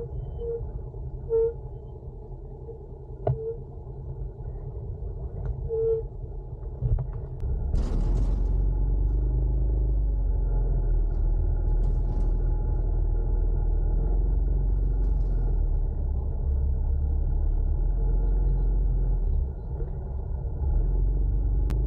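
Small motorcycle being ridden, heard from an on-board camera: a steady low rumble of engine, road and wind on the microphone. It grows louder about eight seconds in and stays so, dipping briefly near the end.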